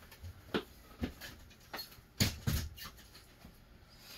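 A handful of irregular knocks and clicks, about five in a few seconds, the loudest a close pair a little past the middle.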